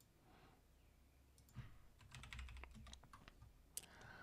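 Faint clicking and tapping on a computer keyboard and mouse: a quick patter of small clicks from about a second and a half in, with one sharper click near the end.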